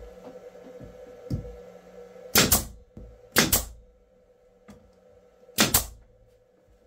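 Three sharp double knocks, about a second apart and then two seconds later, over a steady hum.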